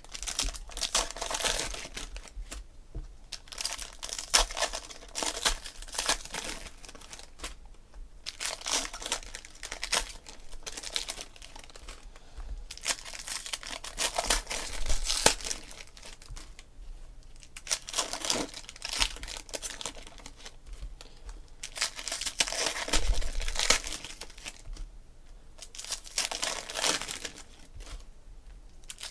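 Foil trading-card pack wrappers being torn open and crinkled by hand, in repeated bouts of crackling a second or two long with short pauses between.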